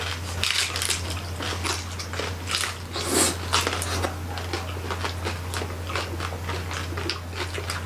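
Close-miked biting and chewing of crispy lechon (whole roasted pig), a dense run of quick, crackly crunches from several mouths at once.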